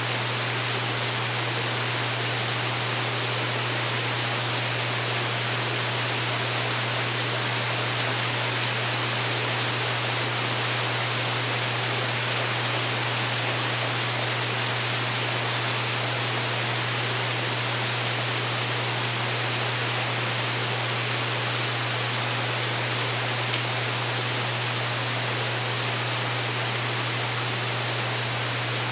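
Steady rain pattering on a porch roof, an even hiss that does not let up, with a steady low hum underneath.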